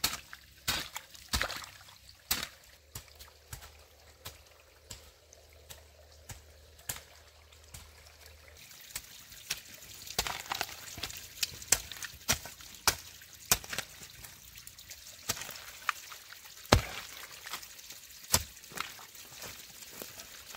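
A hoe blade chopping and scraping into wet, muddy soil in irregular strikes. The strikes are sparse at first and come more often and louder in the second half.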